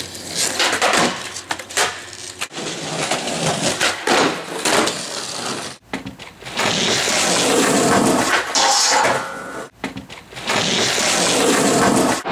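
Skateboard wheels rolling over rough concrete, with sharp clacks of the board popping and landing. The sound breaks off and starts again abruptly a few times.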